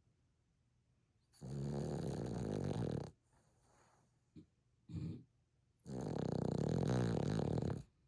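A Boston terrier snoring: two long snores, the first about a second and a half in and the second near the end, with a short snort between them.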